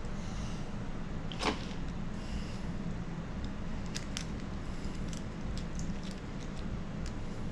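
A steady low hum with a few light, short clicks; the loudest comes about a second and a half in, and fainter ones follow later.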